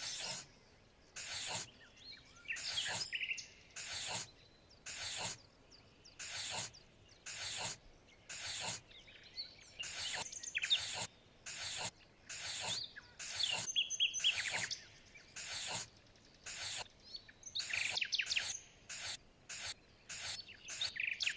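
Tiny hand hoe, a small metal blade on a stick, scraping through loose sand in short, scratchy strokes, a little more than one a second, with brief pauses between them.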